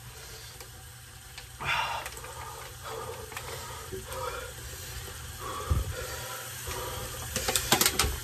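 Hard, gasping breaths from the burn of a very spicy chip, a few sharp breaths with the strongest about two seconds in. A few dull thumps and a quick run of sharp clicks come near the end.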